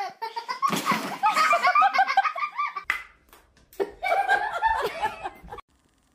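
People laughing in quick repeated bursts, then after a short pause a second stretch of laughter.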